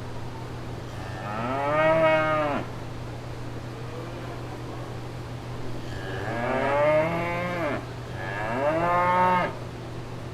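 Cow mooing three times: a first moo about a second in, then two more close together in the second half, each a drawn-out call that rises and falls in pitch. A steady low hum runs underneath.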